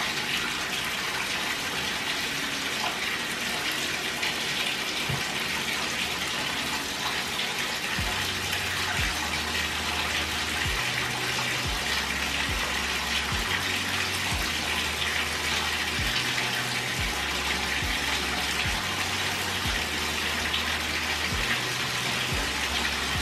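Water running steadily in a bathtub.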